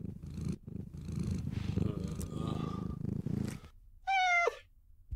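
Cat purring steadily for about three and a half seconds, then one short meow about four seconds in that falls in pitch at its end.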